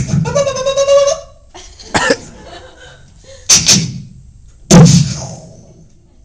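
Vocal sounds from a person: a short high-pitched held note in the first second, then three sharp bursts about two, three and a half and five seconds in, the last the loudest and trailing off.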